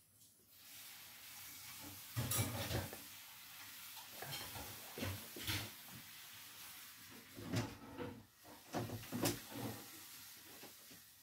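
Pencil scratching on paper in a run of drawing strokes, with several louder strokes that carry a dull knock.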